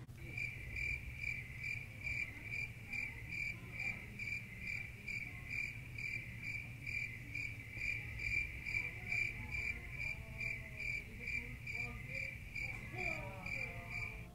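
A cricket chirping steadily outdoors at night, short high-pitched chirps repeating evenly at about two and a half a second, over a low steady hum.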